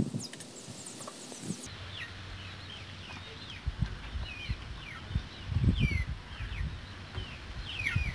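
Birds chirping in short calls that each fall in pitch, several a second, with a few low muffled thumps and rustles near the middle.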